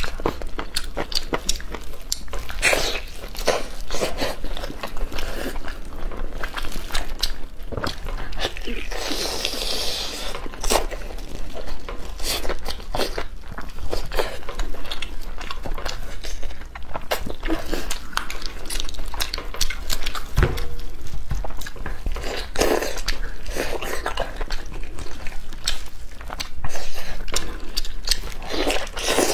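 Close-miked eating of roast chicken: biting, tearing and chewing the meat, with many short irregular clicks and crackles.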